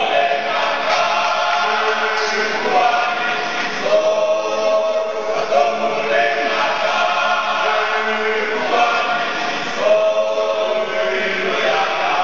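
Men's choir singing in harmony, holding chords in short phrases.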